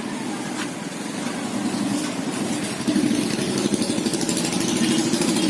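An engine running steadily at idle, getting louder about three seconds in.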